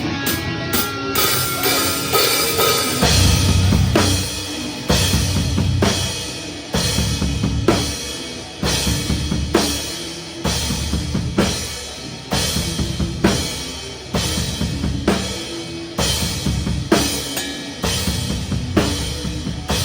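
Metalcore band playing live, picked up by a phone at the drum kit, so the drums are to the fore: kick drum, snare and cymbals over the band. A strong hit lands about once a second, and the low end thickens about three seconds in.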